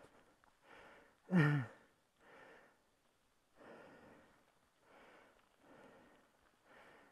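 A cyclist breathing hard and evenly, a breath about every second and a half, with one louder voiced sigh falling in pitch about a second and a half in.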